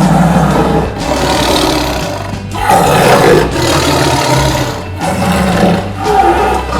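Tiger roaring: three long, rough roars one after another, over background music.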